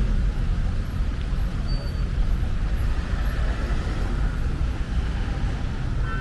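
Road traffic on a city street: cars idling and pulling away at an intersection, a steady low rumble.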